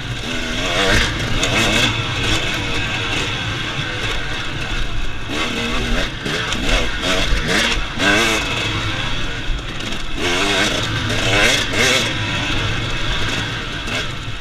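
Husqvarna TX 300 two-stroke dirt bike engine revving up and down over and over as it is ridden along a trail, with occasional knocks and rattles.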